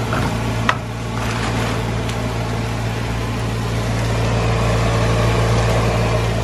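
Steady low hum with an even hiss of vegetables and rice frying in a pan, and a single sharp clink about a second in.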